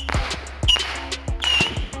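Saturn Missile Battery firework cake firing its small missiles in rapid succession, about two shots a second, several with a short high whistle, each ending in a sharp pop.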